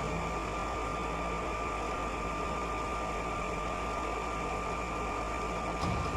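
Steady engine and machinery hum with a constant high whine, from a truck-mounted concrete pump running.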